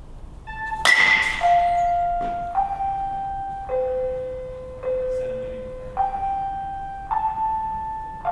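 A slow melody of bell-like chime notes, one struck about every second at changing pitches, each ringing on and fading before the next. The loudest note, about a second in, comes with a sharp crack.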